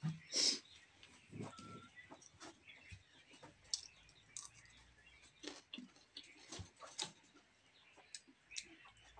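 Eating sounds: scattered short, wet clicks and smacks of chewing and lip-smacking, with fingers working rice in a steel plate; the loudest comes about half a second in.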